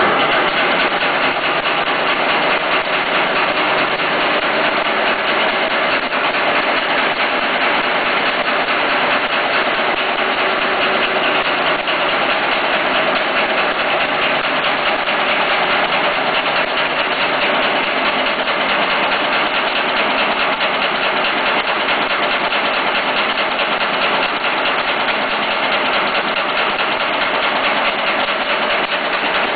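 Nail making machine running continuously: a loud, steady, rapid mechanical clatter.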